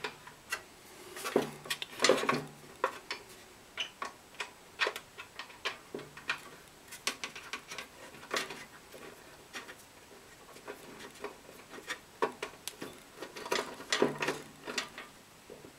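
Irregular light clicks and taps of small metal parts, screws and washers, being handled against the blower motor housing as the washers behind the screws are picked out.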